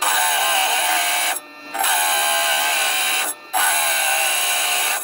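Sintered diamond blade of a small wet lapidary trim saw grinding into a piece of obsidian three times, a loud high grinding whine that drops away twice for a moment as the stone is pulled back. These are dressing cuts, meant to expose fresh diamonds on a dull, well-used blade.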